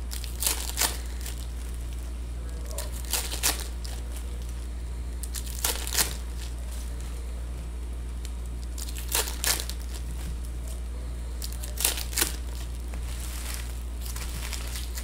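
Foil wrappers of Panini Optic basketball card packs crinkling and tearing as they are ripped open, in short paired crackles about every three seconds, five pairs in all.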